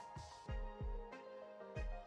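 Background music: sustained synth chords over deep, repeated kick-drum beats.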